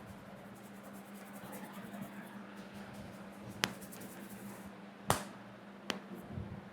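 Hands massaging a head: soft rubbing with three sharp slaps or taps, the second about a second and a half after the first and the third soon after, over a steady low hum.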